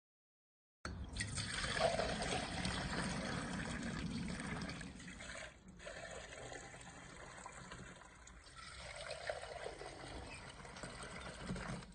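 Water gushing from the spout of a hand-worked piston pump with a 92 mm working cylinder and splashing into a plastic measuring jug as it fills. It starts about a second in.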